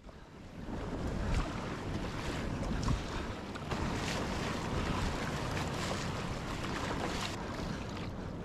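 Wind buffeting the microphone over a steady rush of waves and water around a kayak at sea.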